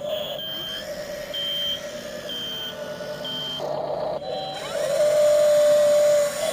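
RC model excavator's reversing beeper sounding four short high beeps about once a second, over the steady whine of its running machinery, which grows louder near the end.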